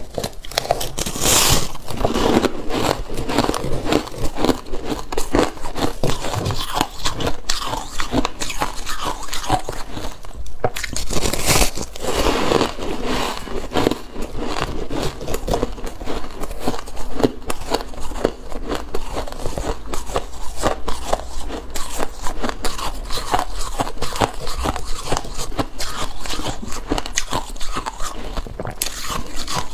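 Compacted shaved ice crunching close to the microphone as it is bitten, chewed and crumbled in the fingers: a dense, continuous run of crisp crackles and crunches.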